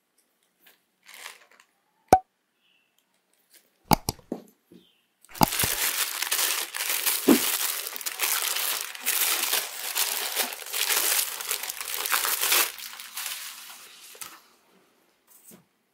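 Thin white tissue wrapping paper crinkling and rustling as it is pulled about inside a shoe box, for about nine seconds from around the middle. Before it come a few sharp clicks and light taps.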